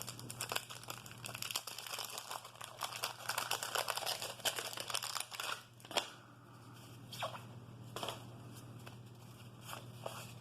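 Wax-paper wrapper of a 1988 Topps card pack crinkling and tearing open for about six seconds, then a few separate light clicks and rustles.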